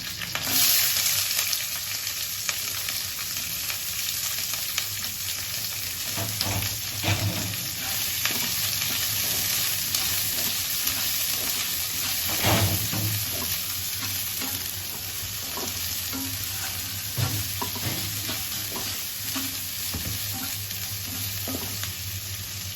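Chopped onion frying in hot oil in a pan, a steady sizzle that is loudest just after the start, with a spatula stirring and knocking against the pan now and then.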